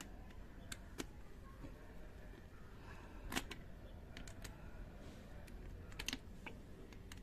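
Small hand screwdriver turning a screw out of the plastic back casing of a cordless phone handset: faint, irregular small clicks of the screwdriver against the screw and plastic.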